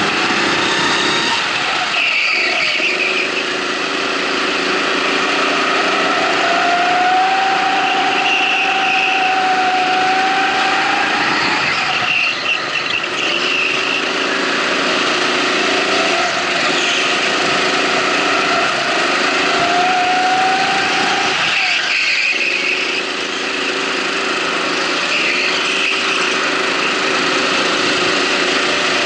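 Racing go-kart's engine heard from on board, running hard down the straights and dropping off then picking up again at the corners, about every ten seconds (near 2, 12 and 22 seconds in).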